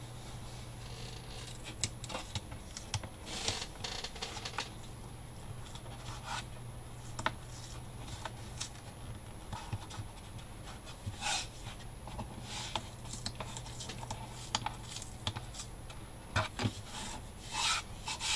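Hands handling thick grey cardboard box walls on a cutting mat: irregular rubbing and scraping of board, with scattered light knocks, over a steady low hum.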